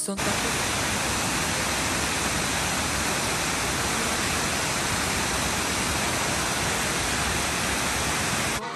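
Waterfall rushing: a steady, even noise of falling water that starts abruptly and cuts off suddenly shortly before the end.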